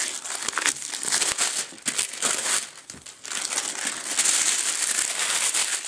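Clear plastic shrink wrap crinkling and crackling as it is peeled off a cardboard box and crumpled by hand, with a short lull about three seconds in.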